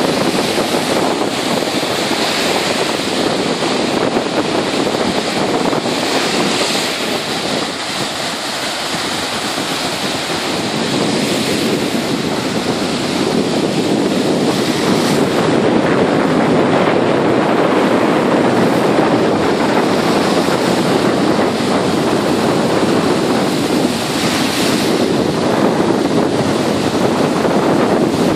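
Small sea waves breaking and washing up onto a shell-and-pebble beach in a steady wash of surf, with wind buffeting the microphone.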